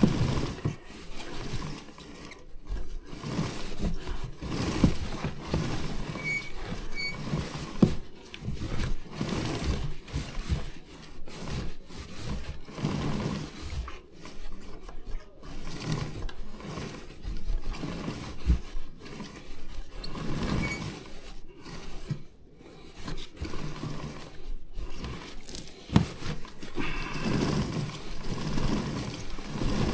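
Rag wiping the drive chain of a Kawasaki KLX300 motorcycle after a kerosene clean: uneven scuffing and rubbing with occasional short clicks from the chain.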